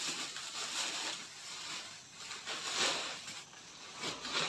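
Plastic shopping bags rustling and crinkling as groceries are taken out and handled, with a few louder crackles.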